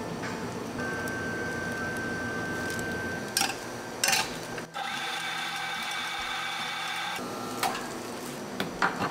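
Espresso being made: two sharp knocks of the metal portafilter, then a coffee machine motor running steadily for about two and a half seconds, then a few lighter knocks near the end.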